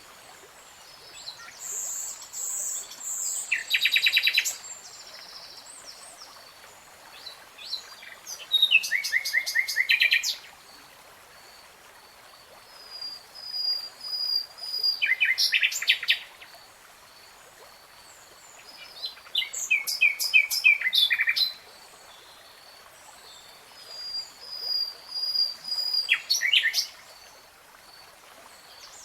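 A songbird singing in short phrases of rapid, trilled notes, about five phrases with pauses of several seconds between them. Soft, high, thin calls fill the gaps.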